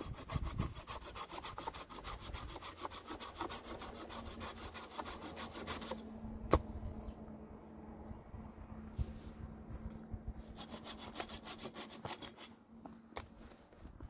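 A saw cutting wood in quick, even rasping strokes for about six seconds, then a single sharp crack. The sawing picks up again briefly near the end.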